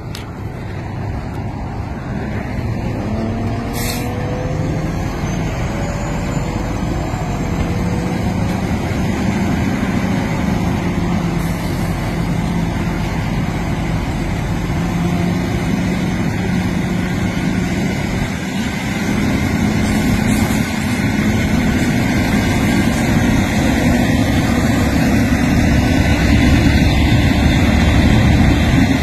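Fire engine running steadily with a low hum while it supplies a hose line, under a rushing noise that grows louder toward the end.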